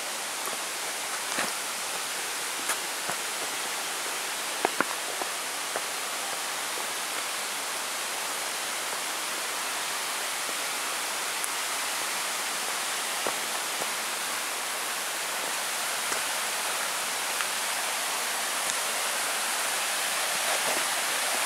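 Steady rush of a forest stream cascading toward a waterfall, growing slightly louder near the end. A few scuffs and clicks of footsteps come off the rocky trail steps, most of them in the first few seconds.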